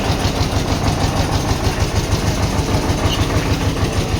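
A large vehicle engine idling steadily, with an even, rapid low throb.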